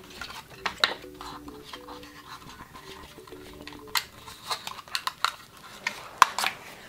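Clicks and taps of small plastic toy-playset pieces being handled and fitted together, irregular and sharp, with a louder clack near the end. A faint held hum of steady tones sounds for a couple of seconds in the first half.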